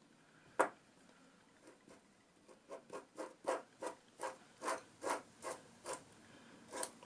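A single click, then a CNC ball nut being twisted onto its ball screw by hand, giving a short rasping rub with each turn, about two a second. The nut is a snug fit, with no play.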